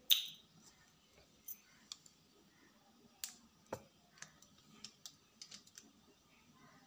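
Light scattered clicks and taps of a utensil against a steel mixing bowl while oil is poured onto flour, with one sharper knock a little before four seconds in.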